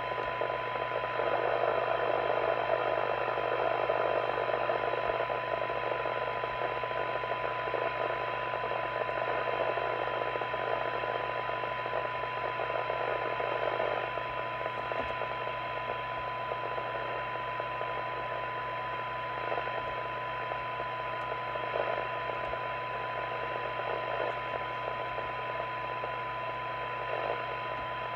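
Harrier CBHQ CB base station receiver playing a weak test signal through its speaker: a steady tone buried in hiss, heard while the receiver's IF coils are being aligned on a low-level signal. The hiss eases a little about halfway through.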